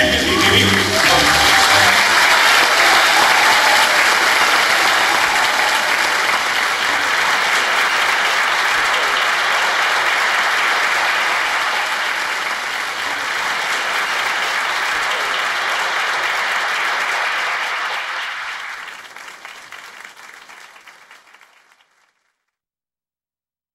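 A large audience applauding, with the orchestra's last notes dying away in the first second. The applause holds steady, then fades out near the end.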